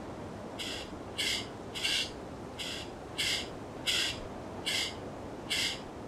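Fledgling pied currawongs calling: a series of about eight short calls, one every half-second to second, over a steady background hiss.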